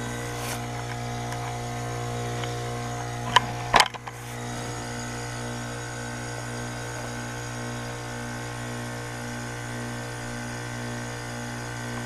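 Heat pump outdoor unit running in heat mode: a steady hum made of several fixed tones with a slow, regular pulsing underneath. Two sharp clicks come about three and a half seconds in.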